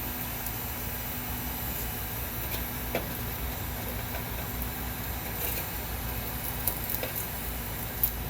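Propane burner of a smoker running with a steady hiss and low rumble, and a few sharp ticks over it.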